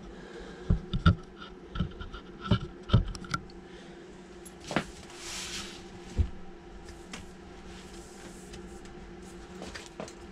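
A large cardboard product box being handled and shifted on a workbench: a quick run of soft knocks and thumps in the first few seconds, a brief rub or slide around the middle, and two more single thumps, over a faint steady hum.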